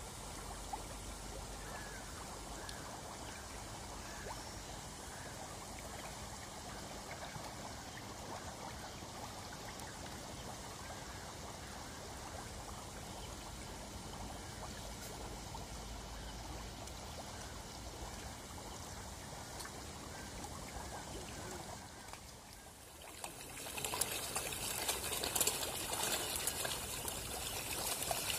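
Dense crowd of hybrid magur catfish churning and splashing at the surface of a farm pond, a steady watery patter. Near the end it gets louder and sharper, as the fish thrash in shallow water at the bank.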